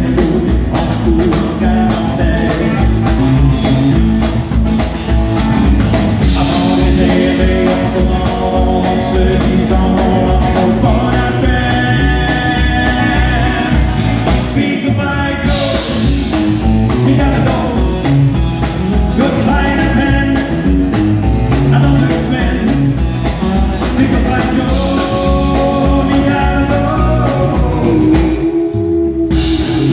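Live country song: a man singing with his strummed acoustic guitar, over band accompaniment with a steady drum beat.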